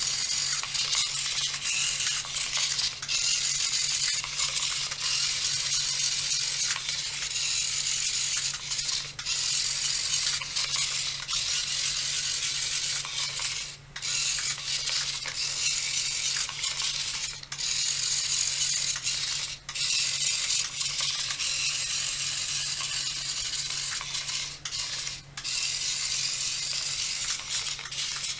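Toy robot's small plastic geared motors whirring and rattling as it drives and spins, stopping briefly now and then as the remote is released.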